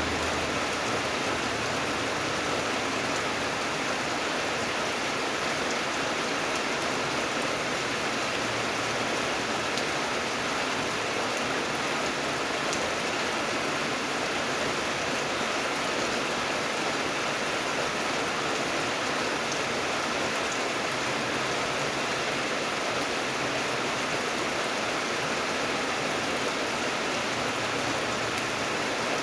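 Steady rain falling: an even, unbroken hiss with a few faint drop ticks.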